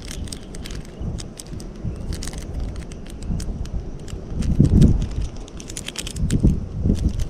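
Hands peeling open and handling a fishing lure's small card-and-plastic packet right at a chest-mounted camera's microphone: a run of small crackles and clicks, with a few dull low bumps from handling about halfway through and near the end.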